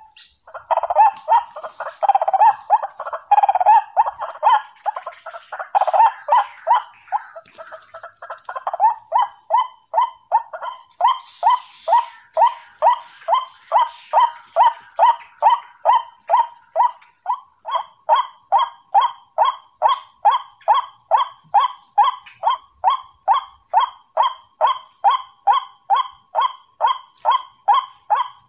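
White-breasted waterhen calls from a small loudspeaker bird caller: a jumbled, loud run of calls for the first eight seconds or so, then an evenly repeated call note about two to three times a second. A steady high hiss sits above.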